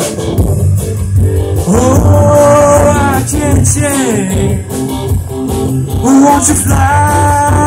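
A live rock band playing through PA speakers: drum kit, electric guitars and electric bass, with sustained notes that bend in pitch.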